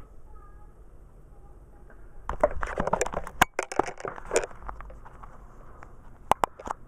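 Clicks and knocks from handling the laptop's plastic case and parts: a quick flurry of sharp clicks about two seconds in, then a few single clicks near the end.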